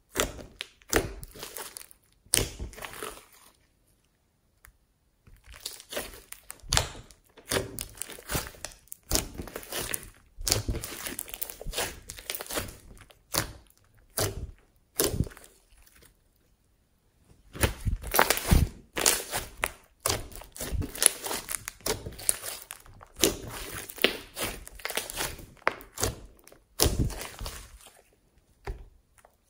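Thick glossy slime with foam beads mixed in, squeezed, poked and stretched by hand: irregular bursts of sticky crackling and popping as air pockets burst. The sound stops briefly twice, about four seconds in and again just past the middle.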